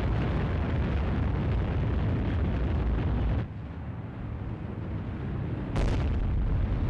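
Rocket launch roar, a dense low rumble. It eases off a little over three seconds in, then a sudden sharp burst just before six seconds brings back a full roar, in time with a stage separating and the next stage firing.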